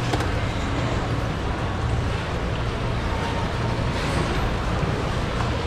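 Steady low hum and background noise, with a single sharp tap at the very start.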